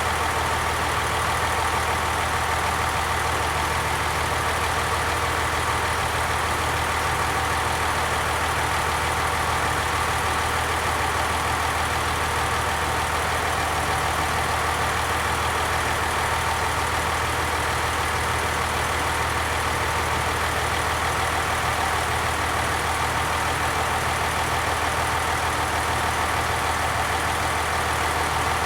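Diesel train engine running steadily, an even low drone that holds unchanged throughout.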